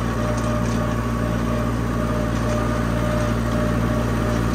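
Farm vehicle engine running steadily at constant speed: a low, even drone with a faint steady whine over it.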